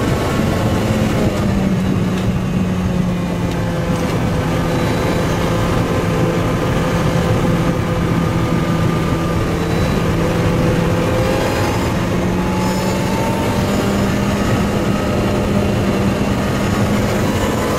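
Lotus Exige S2 Cup 260's supercharged 1.8-litre four-cylinder engine pulling hard at speed, heard inside the cabin along with tyre and wind noise. Its pitch holds fairly steady, dipping slightly about a second in and rising again around twelve seconds.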